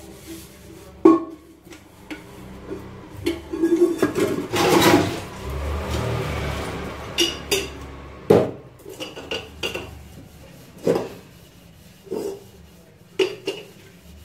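Stainless steel utensils and pots clanking and knocking against each other and the sink as they are washed and rinsed by hand, with a longer rushing noise about five seconds in.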